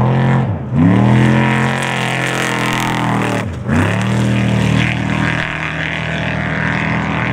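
Unlimited-class off-road race truck's engine revving hard: quick blips, then a long pull whose pitch slowly sinks, a brief lift off the throttle about three and a half seconds in, and a second pull that settles into a steady run.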